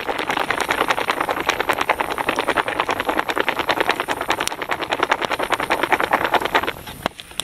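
Foil-lined backpacking dessert pouch crinkling in quick, even strokes as the creme brulee filling mix is beaten briskly with cold water, stopping abruptly near the end. A few campfire crackles go on after it.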